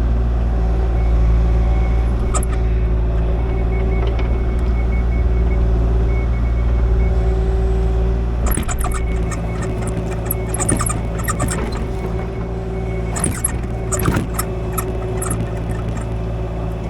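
Kubota KX040 mini excavator's diesel engine running steadily while it works the ground. From about halfway through, sharp clicks and clatter come over it, as if stones and metal were knocking together.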